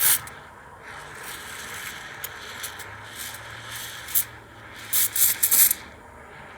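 Espresso machine steam wand frothing milk with its tip held at the milk's surface: a steady hiss broken by several louder, sputtering bursts of hiss as air is drawn in. The loudest bursts come near the end, and then the sound dies down.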